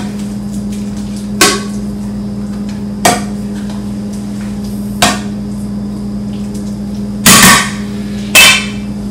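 Sharp knocks of kitchen utensils against hard dishware, four single raps spaced a second and a half to two seconds apart, then two longer, louder clatters near the end, over a steady low electrical hum.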